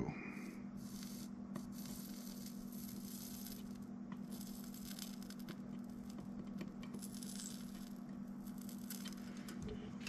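Flux sizzling and faintly crackling as a soldering iron melts solder into a small butt-splice connector, over a steady low hum.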